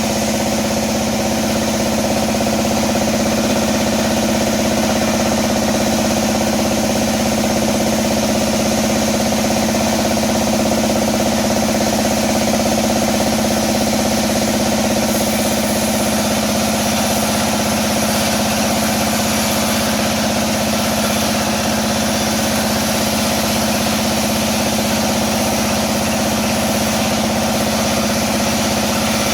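Band sawmill running steadily, its drive and blade giving a continuous hum with a strong low tone.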